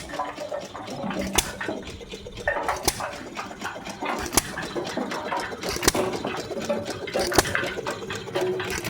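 Hit-and-miss engine running with a clickety clatter, firing with a sharp bang about every second and a half and coasting between.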